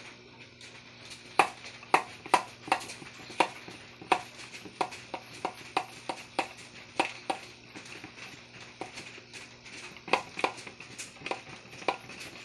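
Plastic hand pump of a garden pressure sprayer being pumped, its plunger clacking with a short ringing note on each stroke, about two strokes a second with a few pauses. The pumping pressurises the sprayer so it pushes air through tubing into an aquarium air stone.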